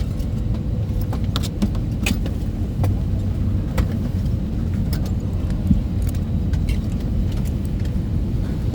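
Steady low rumble inside an Airbus A320 passenger cabin after landing, with scattered sharp clicks and clinks over it.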